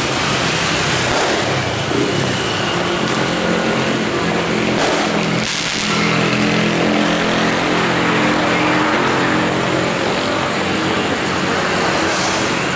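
Diesel locomotive engine running steadily, a low even hum over outdoor background noise.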